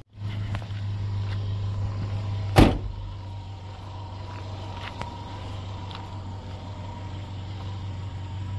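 A vehicle engine idling steadily with a low hum, and one loud thump about two and a half seconds in, followed by a few light clicks.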